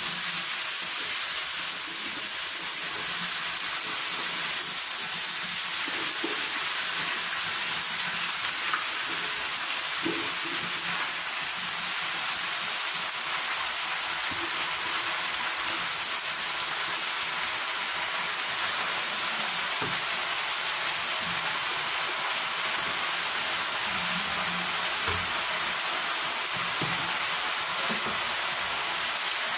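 Pinakbet vegetables (eggplant, squash and string beans) sizzling steadily in a stainless steel pan over a gas burner as they are stir-fried, with a few faint light knocks scattered through.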